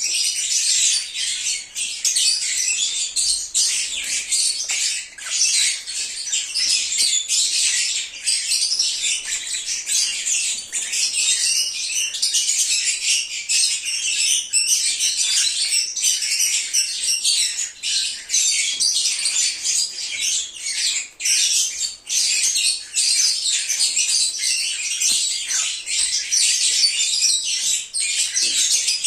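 A flock of lovebirds chirping and squawking over one another in a continuous high-pitched chatter.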